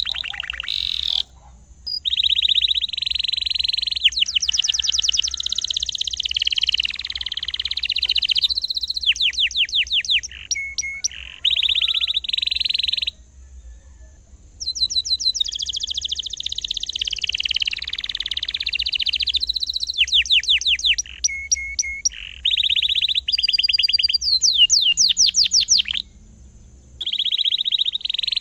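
Domestic canary singing a long, high-pitched song of rapid repeated chirps and rolling trills, in phrases broken by three short pauses.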